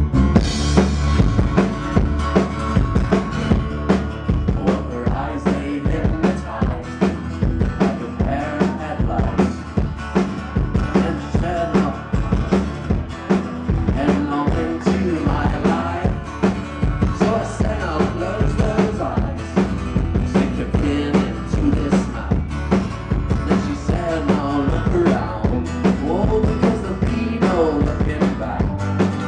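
A band playing live, with a full drum kit (kick, snare and rimshots) driving a steady beat under guitars, recorded from the audience with rough sound.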